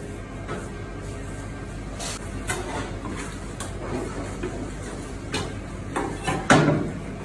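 A knife and hands working a large raw fish fillet on a plastic cutting board: scattered knocks and soft thuds of blade and fish on the board, the loudest near the end, over a steady low hum.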